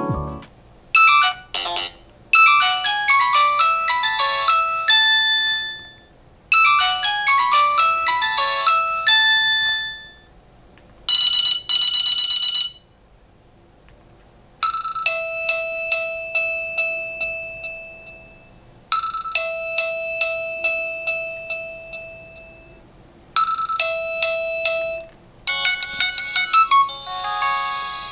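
Nokia 110 4G phone ringtones and alert tones playing one after another, each a few seconds long with short gaps between: quick, bright chiming melodies, a short buzzing tone, and a held chime that fades away, heard three times.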